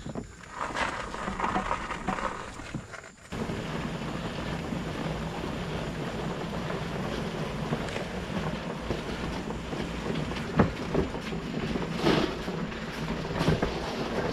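Steady rushing wind noise on the microphone with a faint low drone underneath, setting in abruptly about three seconds in after a patch of uneven rustling.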